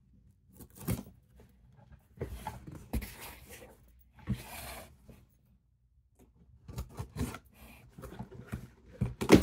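Scissors cutting and slitting packing tape on a cardboard shipping box, with rasping scrapes as the blade runs along the tape and clicks and knocks of the cardboard being handled; a louder knock comes at the very end.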